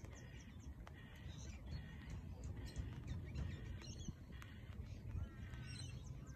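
A bird calling over and over, a short harsh call repeated about once or twice a second, over a steady low rumble.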